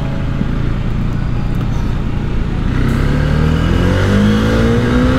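Bajaj Dominar 400's single-cylinder engine pulling under throttle, its pitch climbing steadily through the second half as the motorcycle accelerates past traffic.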